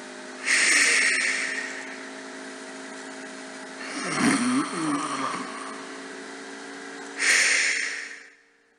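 A sleeping man's breathing and snoring, three loud breaths about three seconds apart, the middle one with a low vibrating snore, under a steady low hum. The breathing still sounds regular, shown as the run-up to an obstructive sleep apnea episode. The sound cuts off suddenly near the end.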